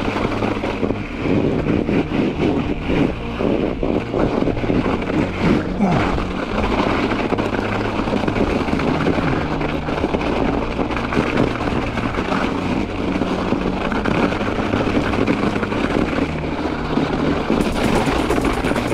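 Ibis Ripmo V2 mountain bike riding fast down a snowy trail: a steady rumble of wind and tyre noise, with frequent knocks and rattles from the bike over the bumpy, trampled snow.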